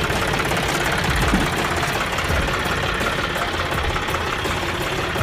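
John Deere 5310 tractor's three-cylinder diesel engine running steadily at low speed, close by.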